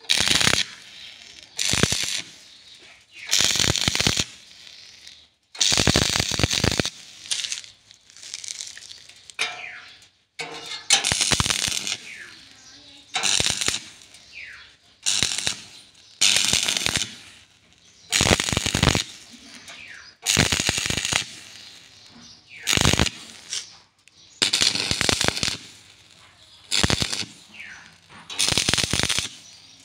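Electric arc welder laying a string of short tack welds on a steel tube gate frame: about fourteen bursts of arc noise, each around a second long, with short pauses between.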